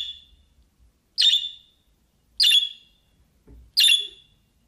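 Budgerigar giving short, sharp contact chirps, four alike, about one every second and a quarter.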